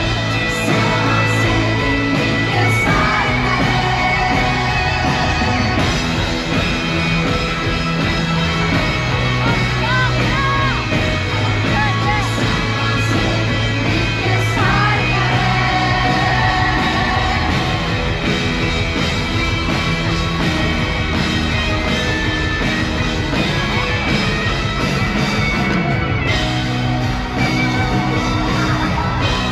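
Live pop concert: a band playing with a male lead singer, and yells and whoops from the crowd.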